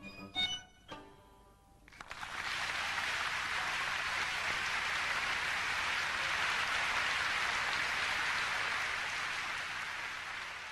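The last notes of a violin and piano die away, and about two seconds in an audience breaks into sustained applause, which eases slightly near the end.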